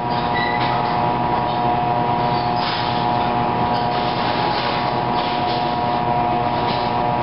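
Steady machinery hum with a constant whine, over the rustle and rub of a cloth-wrapped ball of tea leaves being pressed and rolled by hand on a bamboo tray.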